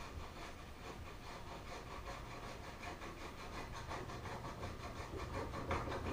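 Rhythmic metal rubbing and scraping, about four to five strokes a second, from hand-turning a threaded tool to press a new oil seal into a motorcycle fork leg.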